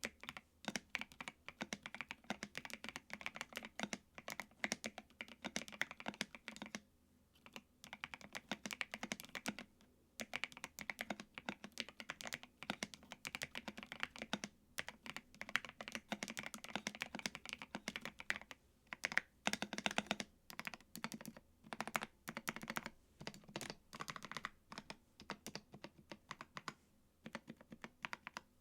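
Continuous typing on a mechanical keyboard with PBT keycaps, giving a deep, thocky keystroke sound in fast irregular runs, with brief pauses about 7 and 10 seconds in.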